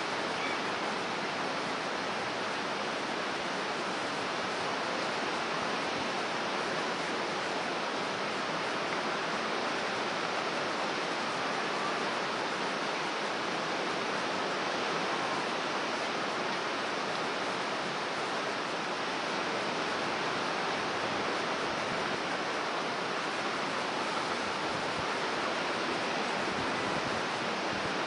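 Rough storm surf breaking, a continuous even rush of water at a steady level.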